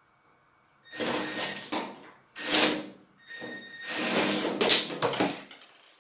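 Cordless impact driver running in three bursts, the last and longest about two seconds, backing self-tapping screws out of an oven's sheet-metal back panel.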